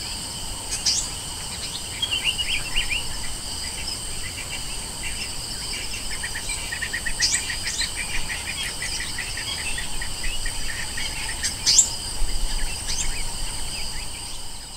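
Insects singing steadily on several constant high tones, with bird calls over them: short rising whistles about a second in, near the middle and about twelve seconds in, and a rapid run of chirps in the middle.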